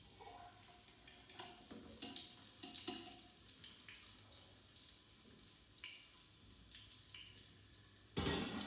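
Faint kitchen cooking sounds: a steady soft hiss with scattered light clinks and knocks of a utensil, and a short, louder rush about eight seconds in.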